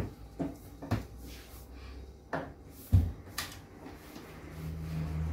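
Kitchen cupboard doors being handled and opened: a series of sharp wooden knocks and clicks, about six in all, the loudest about three seconds in. A low steady hum comes up near the end.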